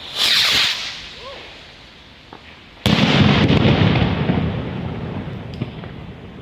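A firework: a short loud hiss as it goes off, then about three seconds in a single loud bang whose rumbling echo dies away over about two seconds.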